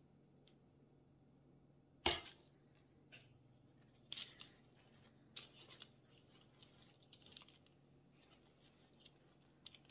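A single sharp click of a metal fork on a cutting board about two seconds in, then a paper towel crinkling and rustling in short bursts as it grips a chicken tenderloin's tendon threaded through the fork's tines and pulls it out of the meat.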